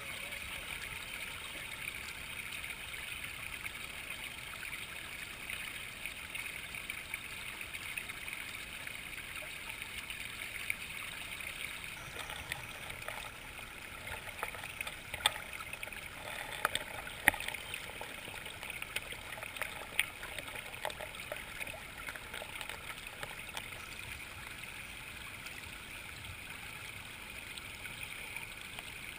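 Shallow creek water running and burbling over rocks, a steady rushing with a few short sharp clicks scattered through it.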